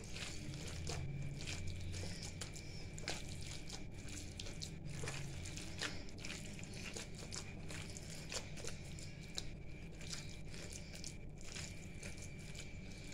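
Hand squeezing and kneading raw minced mutton mixed with yogurt in a bowl: faint, irregular wet squishing with small clicks.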